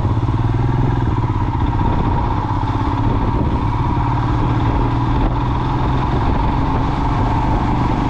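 Motorcycle engine running steadily as the bike is ridden, heard from on the bike.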